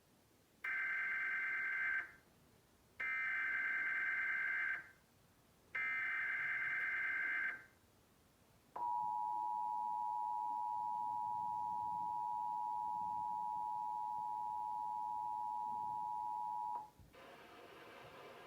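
Emergency Alert System header: three short bursts of screeching digital data tones about a second apart, then the two-tone attention signal held steady for about eight seconds before cutting off, opening a Required Monthly Test.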